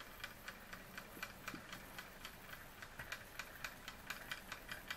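Linemar J-5322 tinplate vertical-boiler model steam engine running: a quiet, steady ticking at about five to six ticks a second, a little louder near the end.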